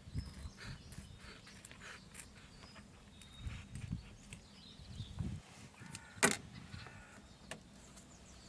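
Faint handling sounds of foam insulation being pressed down and trimmed on an engine cover: scattered soft thumps and small clicks, with one sharp click about six seconds in.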